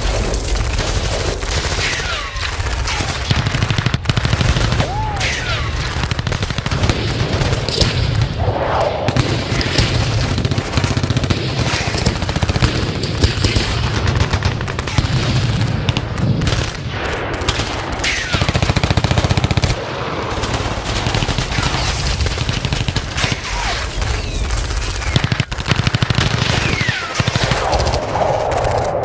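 Battle sound effect of sustained gunfire: machine-gun bursts and rifle shots overlapping without pause, with a few brief whistling glides through the din.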